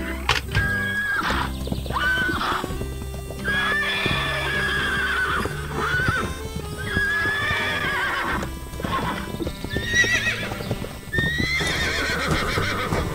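Horses whinnying again and again, with hooves clip-clopping, over background music with a steady low accompaniment.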